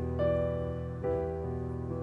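Electric keyboard playing slow held piano chords, with a new chord struck twice.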